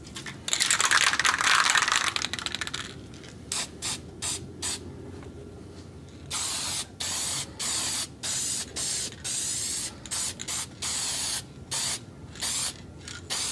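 Aerosol spray can of white top-coat paint shaken hard for about two seconds, its mixing ball rattling. It is then sprayed in many short hissing bursts, each under a second long.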